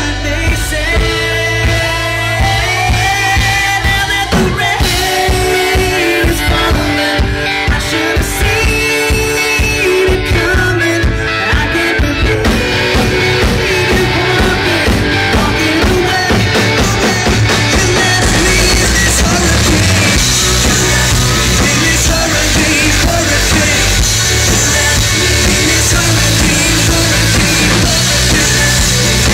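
Live rock band playing, with drums, guitar and a male lead singer. The band grows fuller and brighter about two-thirds of the way through.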